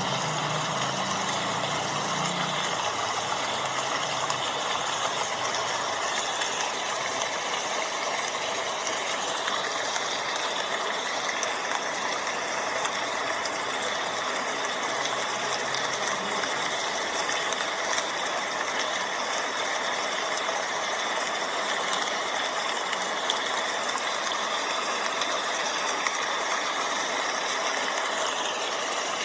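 Steady rain falling, an even hiss without breaks, with faint birdsong mixed in.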